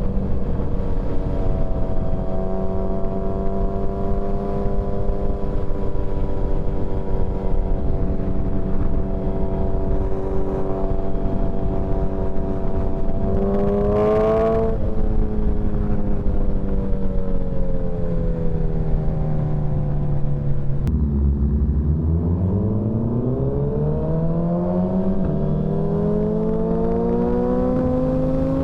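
Motorcycle engine under way at a steady cruise, its pitch rising briefly about halfway through; about two-thirds of the way in the revs drop low and then climb steadily as the bike accelerates, with a gear change partway up.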